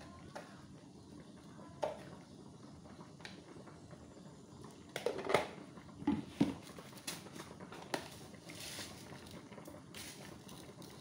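A few scattered knocks and clatters over a faint steady background, the loudest a cluster about five to six and a half seconds in.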